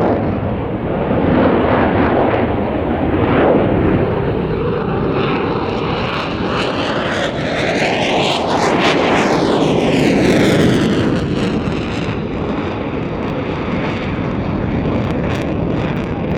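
F-16 fighter jet engine at high power as the jet makes a low, slow pass. It is a continuous loud jet noise with a phasing whoosh that sweeps through pitch as the jet passes closest, about nine seconds in.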